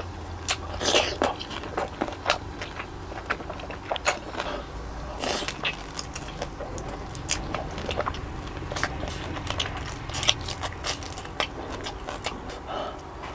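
Close-miked eating of saucy giant prawns: biting and chewing, with many short wet mouth clicks and smacks coming irregularly, several a second.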